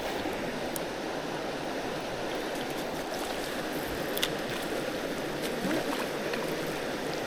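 Steady rush of water pouring over a small waterfall, with a faint click about four seconds in.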